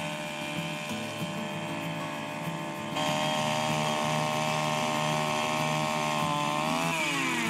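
Two-stroke gas ice auger engine running at high revs as its auger bit drills through lake ice, louder from about three seconds in. Near the end the engine's pitch falls as it slows down.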